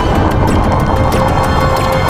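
Loud, dense mix of layered synthesized sound effects that comes across as dark, music-like noise, with rapid clicking throughout and a held tone.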